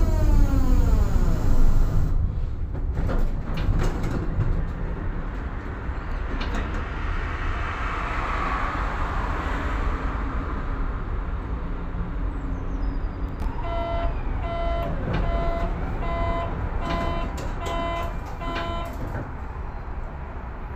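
Tatra KT4Dt tram's traction motor whine falling in pitch as the tram slows, then a steady low rumble. In the second half, a run of repeated electronic beeps lasts about six seconds.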